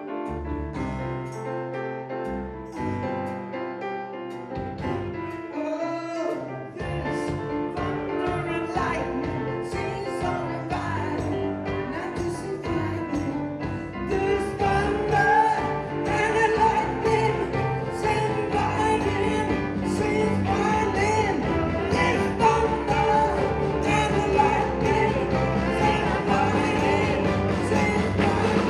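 Live band playing with a lead singer. The music starts sparse, and the full band with a steady beat comes in about seven seconds in, growing louder from about halfway.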